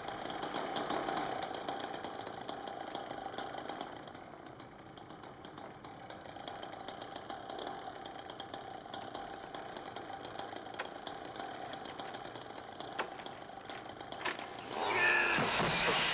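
Chainsaw engine running steadily, with two sharp knocks late on and a louder burst of wavering pitch near the end.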